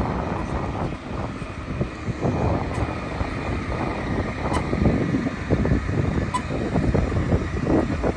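Busy city street noise: traffic and vehicle engines running, with wind buffeting the microphone.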